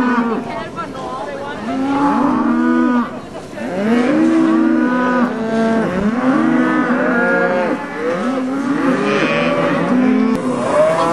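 A herd of cattle mooing, many calls overlapping one another almost without a break, each call swelling up and dropping off.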